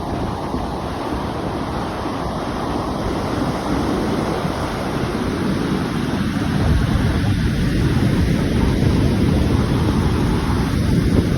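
Ocean surf breaking and washing on a beach, a steady rush that swells louder about halfway through, with wind buffeting the microphone.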